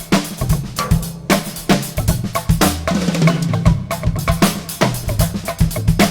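Drum kit played in a fast, busy pattern of kick, snare and rim hits, with short low notes sounding underneath.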